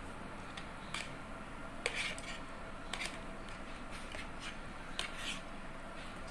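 A handful of light, irregularly spaced clicks and scrapes of small objects being handled, over a steady low background hum.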